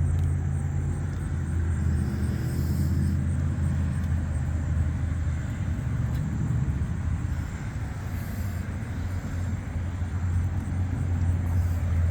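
A steady low rumble and hum, easing slightly about eight seconds in.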